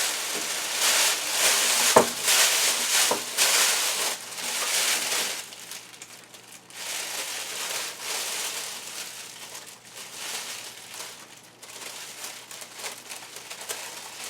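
Plastic oven bag crinkling and rustling as it is handled, gathered and tied shut, loudest in the first five seconds and then in softer, broken rustles, with one sharp click about two seconds in.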